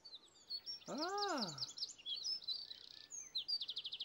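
Birds chirping with quick high notes, ending in a rapid trill. About a second in, a short vocal 'ooh' rises and then falls in pitch.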